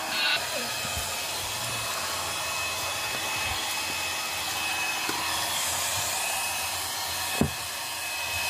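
Handheld hair dryer blowing hot air steadily with a thin high whine, held on an old vinyl floor tile to soften its glue so the tile peels up. One sharp knock about seven seconds in.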